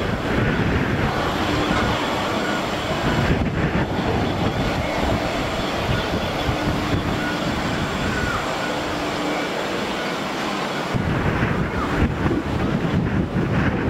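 Gusty wind buffeting the microphone over a steady distant drone of airport machinery with a faint high whine. The wind rumble eases for a couple of seconds about nine seconds in, then returns.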